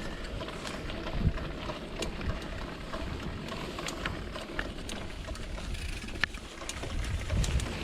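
Mountain bike rolling along a dirt trail: a steady rumble of tyre and wind noise on the microphone, with scattered clicks and rattles from the bike.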